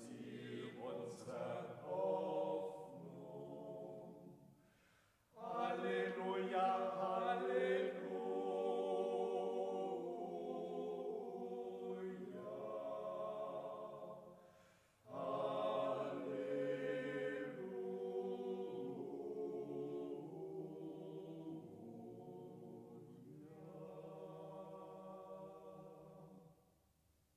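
A choir singing a slow chant in several voices, in long phrases with two brief pauses, about five and fifteen seconds in, fading out near the end.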